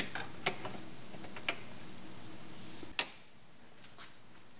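Light metallic clicks and taps of an adjustable wrench being fitted onto the leveling foot of a lathe stand, several in the first second and a half, then one sharper click about three seconds in.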